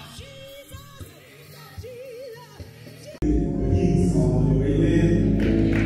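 Music with singing: a faint singing voice at first, then loud, full music with heavy bass cuts in suddenly about three seconds in.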